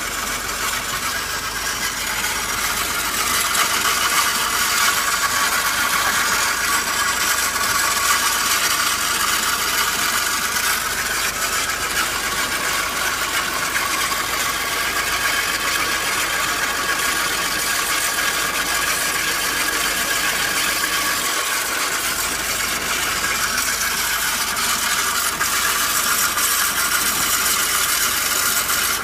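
Fiat 500 engine running with a steady, rapid mechanical rattling and clicking, the strange noise that starts once the engine is warm.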